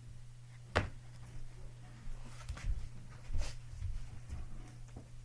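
Several short knocks and thumps of objects being handled and set down, the sharpest just under a second in, over a steady low electrical hum.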